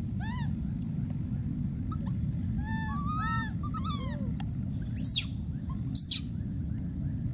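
Baby monkey calling: a string of short, arching coos, then two loud, high-pitched screams about a second apart near the end, over a steady low rumble.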